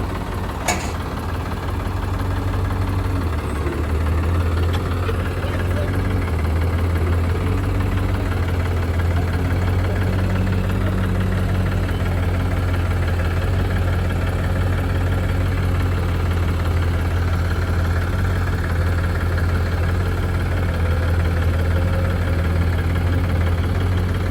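Heavy diesel engine running steadily, with its sound sitting low and even.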